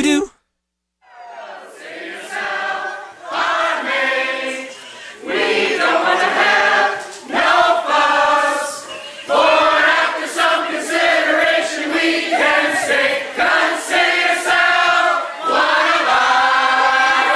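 Dance music cuts off at the start. After about a second of silence, a mixed group of men and women sing a song together, unaccompanied.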